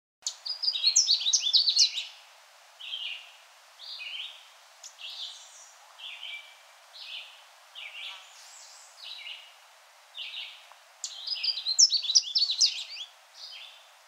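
Canada warbler song: a rapid, jumbled burst of high notes right at the start and again about eleven seconds in, with short single notes about once a second between them.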